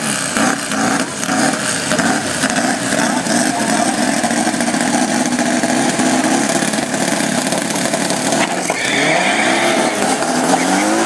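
Drag-racing engines of a VW Beetle drag car and a Mitsubishi Lancer Evolution running at the starting line, then accelerating hard off the line about two thirds in, their pitch rising in repeated upward sweeps.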